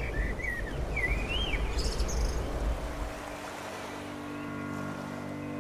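Low outdoor rumble of wind and surf with a few high bird chirps. About halfway through the rumble falls away and a steady held chord of low tones takes over.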